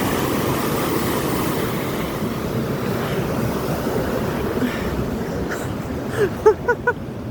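Steady wind rush on a phone microphone. About six seconds in come several short, quick pitched notes.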